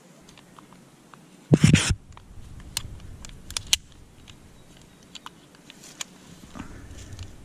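Metal climbing hardware, a rope device and carabiners, clicking and clinking as the climber rigs the rope on his harness. A loud burst of rustling handling noise comes about a second and a half in, followed by a series of sharp separate clicks.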